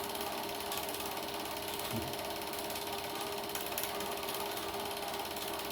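Super 8 film projector running, its film-advance mechanism making a fast, steady mechanical clatter with a faint hum.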